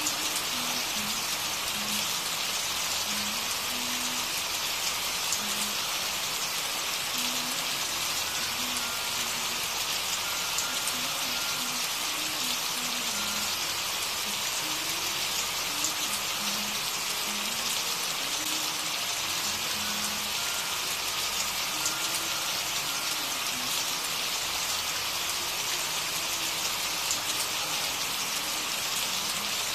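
Steady rain, an even hiss of falling drops, with faint short low tones scattered underneath.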